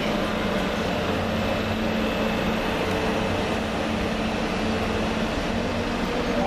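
TGV high-speed trainset running past the platform: a steady rumble of wheels on rail with a low hum running under it.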